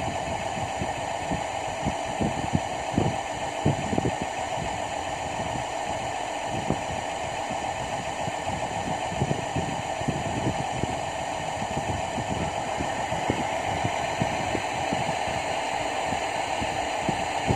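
Steady machinery hum with irregular low thumps and rumbles throughout.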